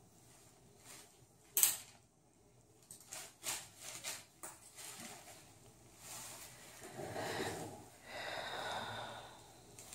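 Handling noises from surgical instruments and gauze. There is one sharp click about one and a half seconds in, a few lighter clicks a couple of seconds later, and a stretch of rustling near the end.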